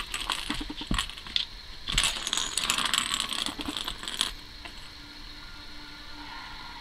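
A ball rattling and clattering around the track of a plastic circular cat track toy as a cat bats at it. There are two spells of clatter with a few single clicks between them, then it goes quiet after about four seconds.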